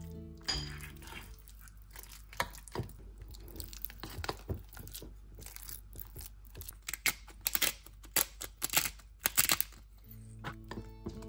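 Metal spoon mixing flaked tuna into a creamy spread in a glass bowl: a run of wet squishing strokes with sharp scrapes and clicks of the spoon, busiest in the second half.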